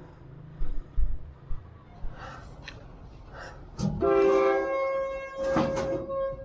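Train horn sounding for about two and a half seconds from about four seconds in, starting as a two-note chord and settling to one held note. A few low thumps come earlier, in the first second and a half.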